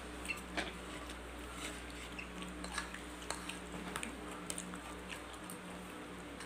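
Knife and fork clicking and scraping on a plate while cutting a fried beef meatball: scattered sharp clicks over a steady low hum.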